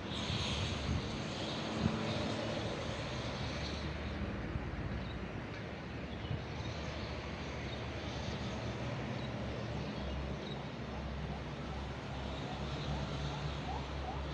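Outdoor ambience dominated by a steady low rumble of road traffic, with a few faint bird chirps.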